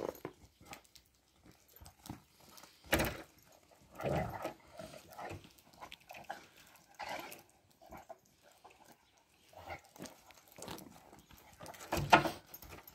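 A German shepherd and a Cane Corso play-wrestling in snow: short, scattered dog sounds and scuffles with pauses between them. The loudest comes about three seconds in, with another near the end.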